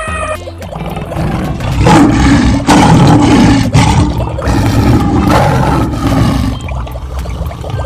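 Big cat roaring, a lion or leopard sound effect: several loud, rough roars in a row, swelling and fading.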